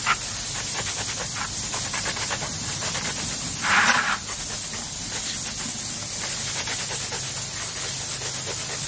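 Garden hose spraying water onto a clump of hornwort held over a bucket: a steady hiss of spray with dripping and spattering, briefly louder about four seconds in.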